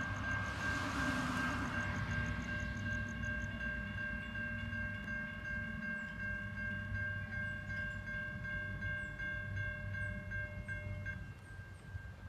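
Distant horn of Union Pacific SD70ACe locomotive 1988 sounding one long, steady chord of several notes that cuts off about 11 seconds in, over the low rumble of the approaching freight train.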